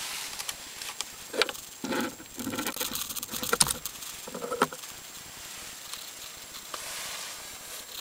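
Steering-wheel quick-release hub being worked by gloved hands: a run of metal clicks, clacks and rattles as the collar and plates are handled, busiest in the first five seconds, then only light rustling.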